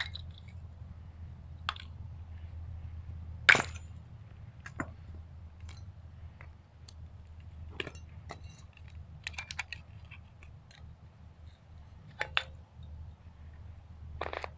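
Pieces of a cement-weighted sterling silver candle holder clinking and tapping against each other and a concrete floor as it is taken apart for scrap, in scattered separate knocks with the sharpest about three and a half seconds in. A steady low hum runs underneath.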